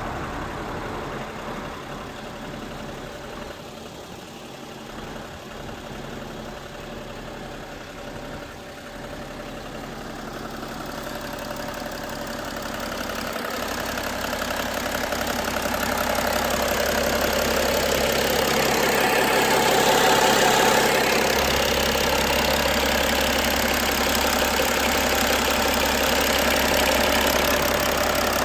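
BMW E90 330d's M57 3.0-litre straight-six diesel idling with a knock. It grows louder over the middle of the stretch, then holds steady.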